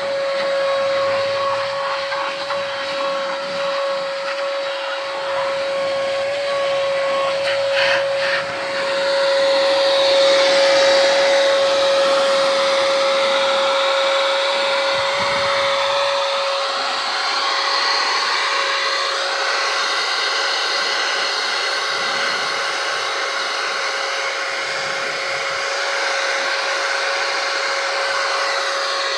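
Vacuum cleaner running steadily through a hose as a car's interior carpets are vacuumed: a constant motor whine under a rushing hiss of air that swells and changes for several seconds partway through as the nozzle works the carpet.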